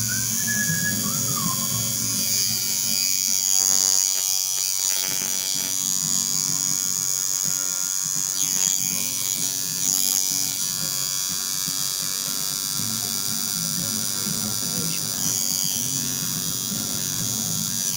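Rotary tattoo machine with a cartridge needle running with a steady motor buzz while lining a tattoo.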